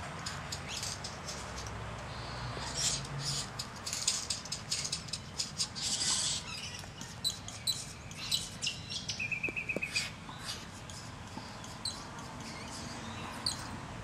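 Great bowerbird at its bower giving a run of short, harsh hissing sounds, with a brief buzzy trill about two-thirds of the way through and a few sharp ticks near the end.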